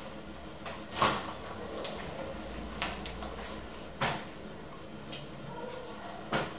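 Kitchen utensils and containers knocking and clattering on a counter while flour is measured out: three sharp knocks, about a second in, at about four seconds and near the end, with a few lighter taps between.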